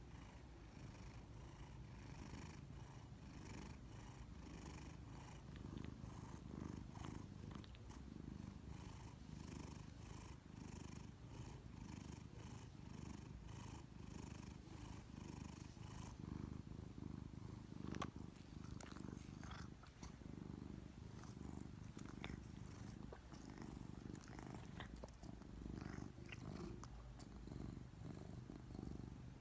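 Maine Coon cat purring softly: a low, continuous rumble, with a few faint clicks in the second half.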